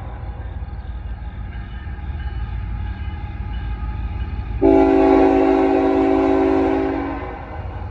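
Low rumble of an approaching CN freight train led by a GE ET44AC diesel locomotive, then, about halfway through, one long blast of its multi-chime horn lasting over two seconds.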